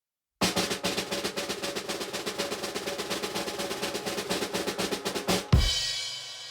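Snare drum roll of rapid, even strokes starting about half a second in and lasting about five seconds, ending on one loud final hit with a cymbal crash that rings away.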